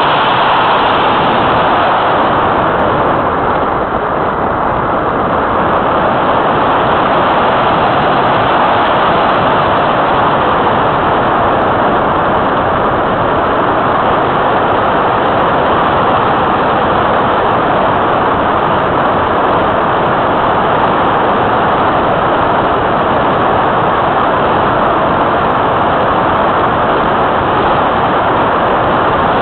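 Steady rush of airflow over a keychain camera mounted on the wing of an Easy Glider Pro RC glider in flight, a constant even hiss with no distinct motor tone.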